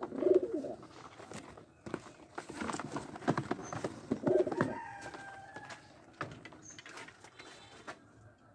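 Domestic pigeons cooing twice, near the start and about four seconds in, with knocks and scuffling from handling a pigeon and a wooden carrier box in between.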